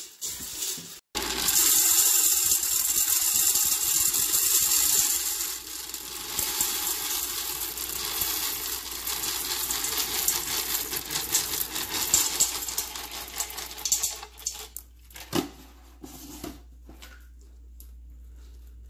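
Water pouring from a pitcher into a stainless-steel Instant Pot inner pot onto dry pinto beans, a steady splashing pour starting abruptly about a second in. About 14 seconds in it gives way to quieter scattered clicks as a hand stirs the beans.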